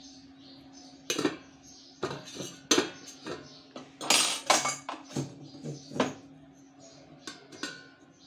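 Steel kitchenware clanking: the steel plate used as a lid on the kadhai being handled, with irregular sharp metal knocks, busiest about four seconds in, and a brief ringing clink near the end. A steady low hum runs underneath.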